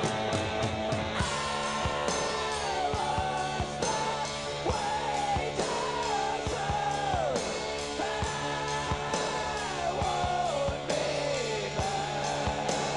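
Rock music: long held melody notes that slide down in pitch again and again over a steady low drone.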